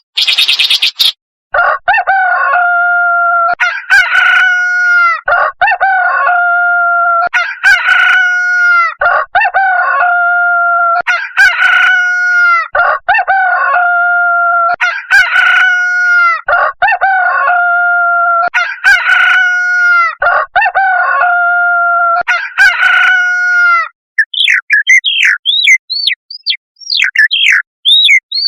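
Shrike calling. It gives a brief harsh rasp, then a long run of nasal, clucking notes, each held just under a second and repeated about once a second, then switches near the end to quick, varied high chirps.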